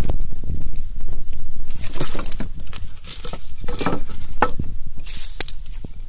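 Handling noise and rustling: irregular crackles and sharp knocks over a low rumble, with louder scraping bursts about two, four and five seconds in.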